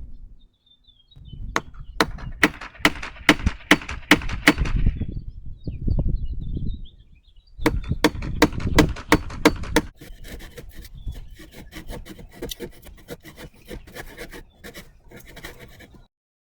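A hand tool working wood in rhythmic strokes, about three a second. It comes in two runs with a pause between, then gives way to a faster, lighter run of scraping strokes that stops suddenly.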